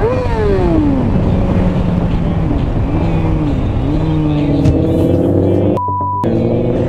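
Kawasaki ZX-6R inline-four sportbike engine revved hard right at the start, its pitch then falling away as the throttle closes, followed by a few smaller rises and dips in engine pitch. About six seconds in there is a short, steady censor bleep.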